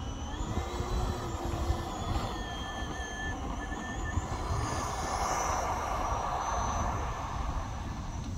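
Electric ducted fan of a BVM Maverick RC jet spooling up for its takeoff roll. It is a rising whine that levels off into several steady high tones and grows louder about five seconds in, over a low rumble of wind on the microphone.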